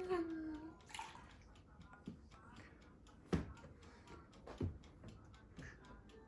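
Milk being poured out to measure 100 ml, heard as a few separate glugs and drips about a second apart, two of them with a falling, bloop-like tail.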